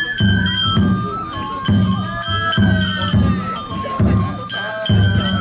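Japanese lion-dance festival music: a bamboo transverse flute plays a high, sliding melody over regular taiko drum strokes.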